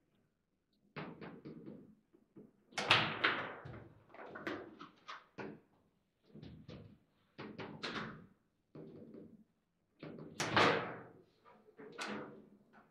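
Table football in play: quick clacks and knocks as the ball is struck by the rod figures and bounces off the table walls, with the rods banging in their bearings, in bursts of several hits with short gaps between.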